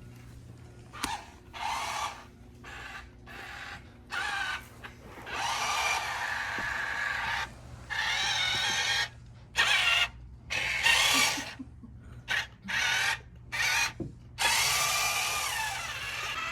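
Toy RC dump truck's small electric motors whining in short spurts, starting and stopping many times as it is driven about by remote control.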